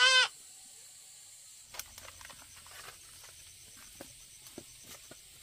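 A short, loud cry that rises in pitch right at the start, followed from about two seconds in by scattered light clicks and rustling over a steady high hiss.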